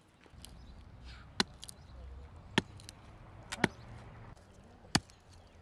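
Hatchet splitting firewood into kindling: about four sharp chopping strikes, a second or so apart.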